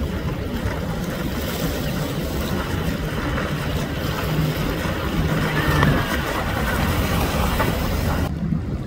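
Jet ski engine running at speed, a steady drone under a broad rush of wind and water spray. Near the end the high hiss drops away suddenly.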